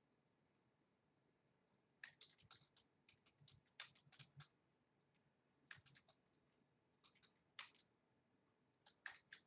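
Faint typing on a computer keyboard: short bursts of keystrokes with pauses between, starting about two seconds in.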